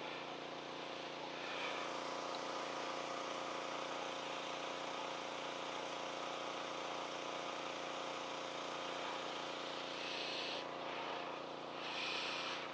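Steady drone of an engine running at a constant pitch, with two short hissing noises near the end.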